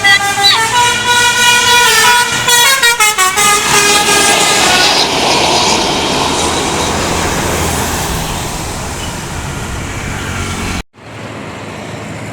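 Bus telolet horn, a multi-tone musical air horn, plays a quick, jumpy tune for about three seconds. It is followed by a loud rushing noise from the passing bus that slowly fades, then a sudden cut to a steadier, quieter rumble near the end.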